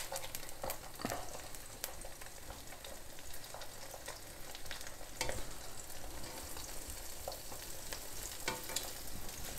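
Oil sizzling and crackling under slices of bread fried with an egg in the middle, in a nonstick pan, with a few louder clicks and scrapes of a spatula as the pieces are turned over.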